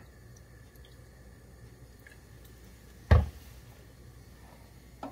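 Faint pouring of apple cider vinegar from a plastic bottle into a plastic measuring cup. About three seconds in comes a single loud thump as a container is set down on the stone countertop.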